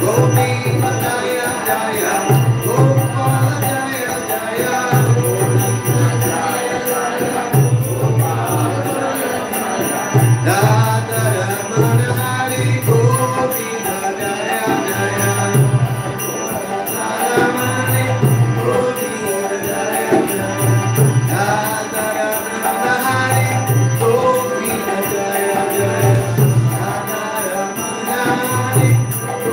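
Devotional kirtan: a man singing a chant over a harmonium, with a two-headed mridanga drum and small hand cymbals (karatalas) keeping a steady rhythm.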